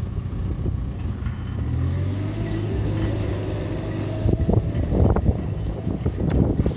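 JCB 526-56 telehandler's diesel engine running, its pitch rising as it revs while the boom comes down and the machine pulls away. A few short thumps follow about four to six seconds in.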